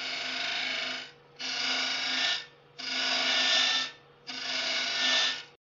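Hollowing bar cutting inside a spinning ash vessel on a wood lathe, taking shavings in four passes of about a second each, with the lathe's steady hum between them. The sound cuts off abruptly near the end.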